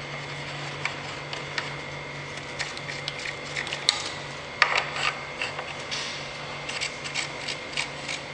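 Feed handles being fitted into the feed hub of a Boabo BB45 magnetic drill: scattered light metallic clicks and taps, over a steady low hum.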